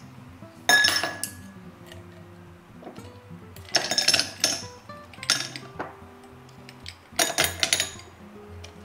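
Ice cubes dropped into a tall drinking glass, clinking sharply against the glass and each other in a few separate clusters: about a second in, around four seconds, and again near seven and a half seconds.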